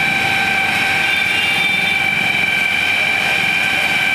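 Fire engine's pump and engine running steadily, feeding the hoses, with an even high-pitched whine over a constant rushing drone.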